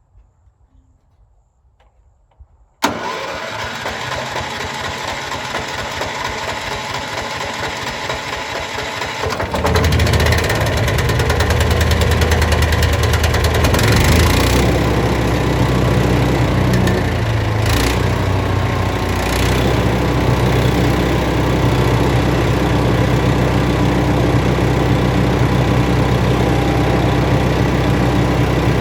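Powerhorse wood chipper's small gasoline engine starts running suddenly about three seconds in, then runs louder and steadily from about ten seconds in, with a few brief louder bursts.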